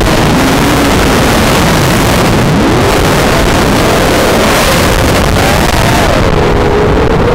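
FPV quadcopter's motors whining, their pitch sliding down and up as the throttle changes, over loud wind rush on the onboard camera's microphone.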